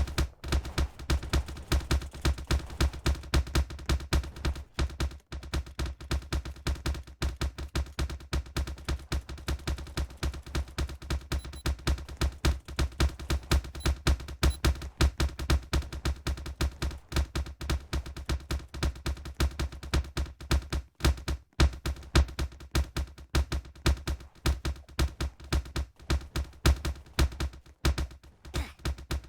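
A steady, rapid train of sharp clap-like knocks, about three a second, each with a deep thud.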